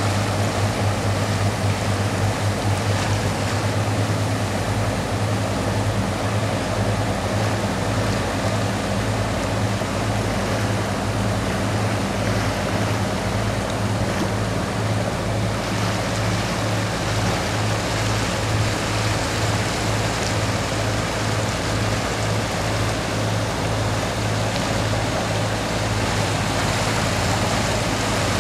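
Boat engine running steadily under way with a low, even throb, over the rush of water.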